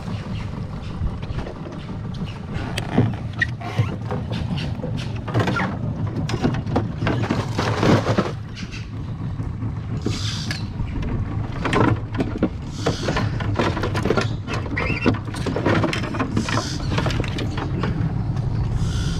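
A hooked fish thrashing and splashing at the water's surface beside a small boat while the angler cranks a spinning reel. A steady low hum runs underneath, and sharp splashes come irregularly all through.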